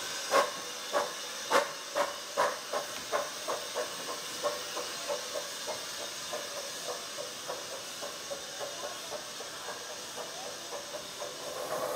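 Small 15-inch-gauge steam locomotive, the Krauss-built 'Bug', chuffing as it gets under way: sharp exhaust beats that quicken from under two to about three a second and grow fainter, over a steady hiss of steam.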